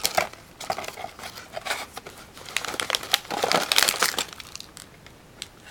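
Crinkly plastic snack bag being handled and lifted out of a cardboard box, rustling in irregular crackles that are busiest about three to four seconds in.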